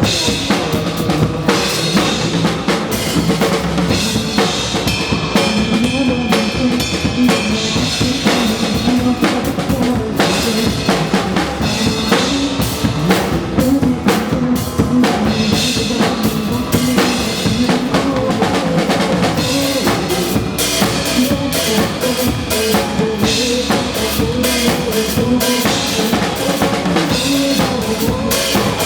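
Drum kit played live, a steady kick-and-snare groove over a recorded backing track of a pop song.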